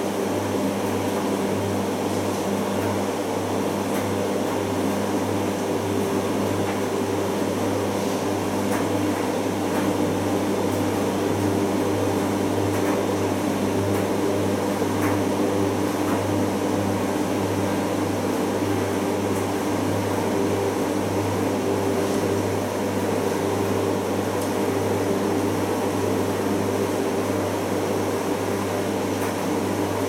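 Primus FX105 commercial washing machine turning a duvet in its drum during the final rinse: a steady motor hum that stays even throughout, with faint clicks from the tumbling load.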